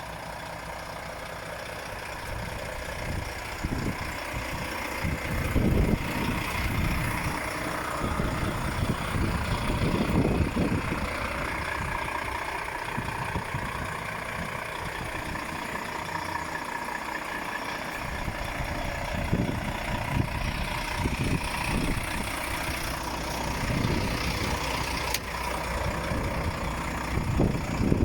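Volvo FM 400 truck's diesel engine running steadily at idle, with irregular low rumbling surges throughout.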